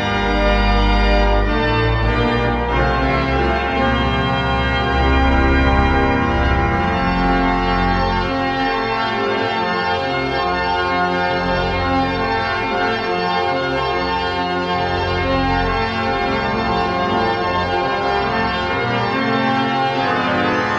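1885 Schuelke mechanical-action (tracker) pipe organ playing, with held chords over deep pedal bass notes.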